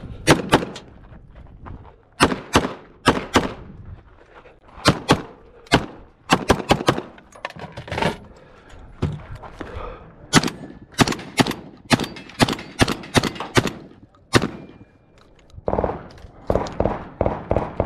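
Gunfire in quick pairs and short strings with brief pauses between them, starting with a pistol.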